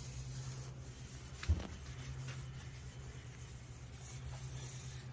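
Faint rubbing of a rag wiping excess linseed oil off a wooden rifle stock, over a steady low hum, with a single light knock about a second and a half in.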